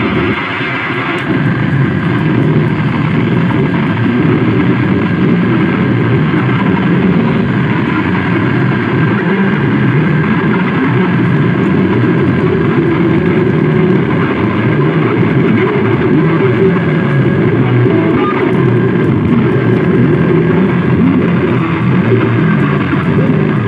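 Harsh noise music: a loud, dense, unbroken wall of distorted electronic noise, shifting in texture about a second in and then holding steady.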